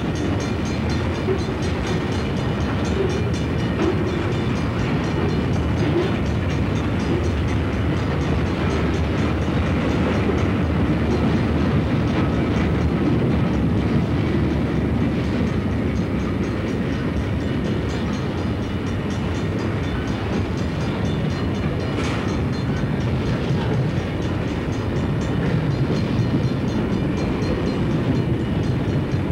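Freight cars of a Southern Pacific train (boxcars, a lumber car, tank cars) rolling steadily past close by: a continuous rumble of steel wheels on rail with clickety-clack over the rail joints.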